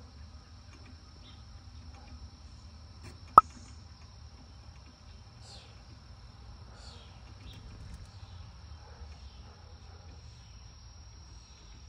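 A steady, high-pitched insect drone with a few faint chirps, and one sharp click about three and a half seconds in.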